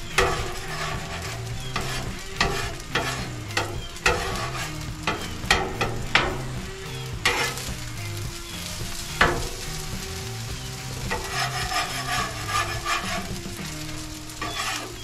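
Eggs and rice sizzling on a Blackstone flat-top griddle, with a metal spatula scraping and clacking on the steel many times as the eggs are scrambled into the fried rice.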